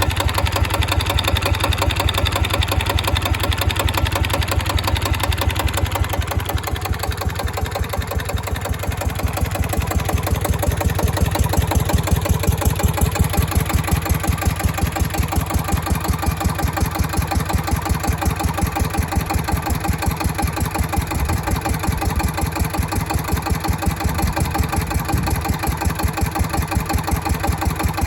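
SD1110 single-cylinder diesel engine of a homemade 5 kW generator running steadily at its 1200 rpm set speed, with an even, rapid chugging beat. It is slightly quieter for a few seconds about a quarter of the way in.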